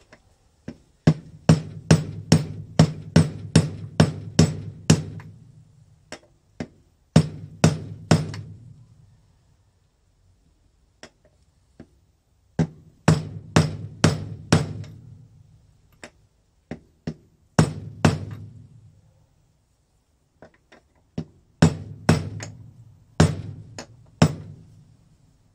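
Rubber mallet striking a steel socket used as a drift, tapping an oil seal into the D50B0 engine's aluminium crankcase. The blows come in five or six bursts, about three a second, with pauses between. Each one rings with a low boom because the metal shed vibrates with it.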